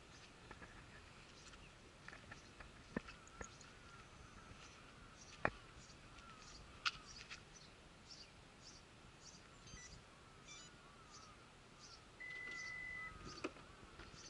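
Toyota Harrier Hybrid's power tailgate warning buzzer giving one steady beep of about a second near the end, as the tailgate begins to open. Under it, faint repeated high chirps and a few sharp clicks.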